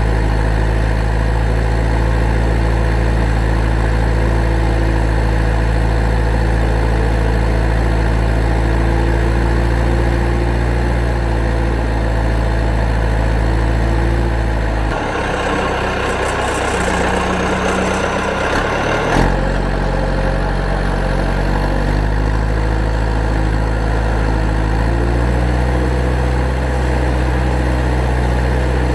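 A heavy engine idling steadily with a low, even hum. About halfway through, a rushing noise covers it for some four seconds before the idle returns.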